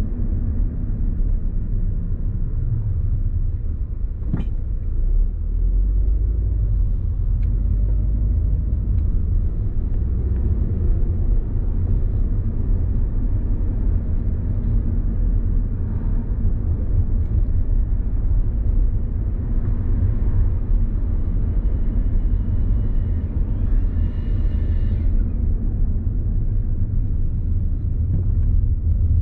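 Steady low rumble of a car's road and engine noise picked up by a dash camera while driving. There is a brief click about four seconds in and a faint high squeal a few seconds before the end.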